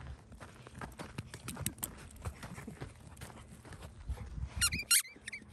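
Quick irregular footfalls of a German shorthaired pointer's paws crunching on dry dirt and gravel as she runs up close. About four and a half seconds in, two short high squeaky sounds, the loudest moments here.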